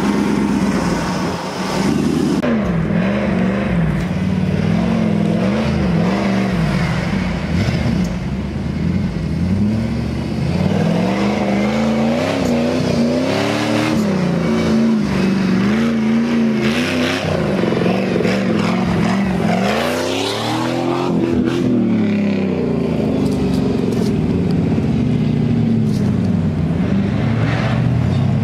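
Off-road four-wheel-drive vehicle's engine revving up and down over and over as it is driven through rough terrain, with a longer climb in revs about two-thirds of the way through.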